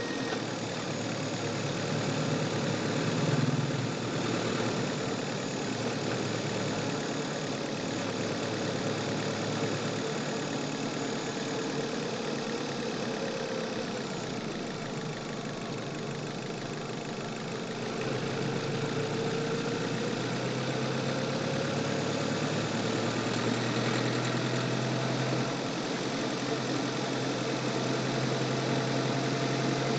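Chevrolet car engine running, heard through a microphone in the engine bay; its note sags in the middle and picks up again about eighteen seconds in.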